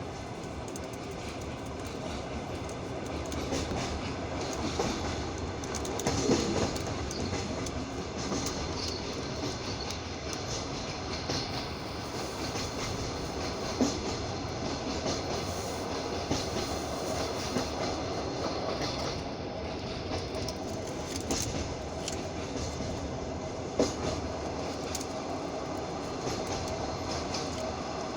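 Passenger train carriage running on the rails: a steady rumble of the wheels with sharp knocks as they cross rail joints, heard from inside the carriage.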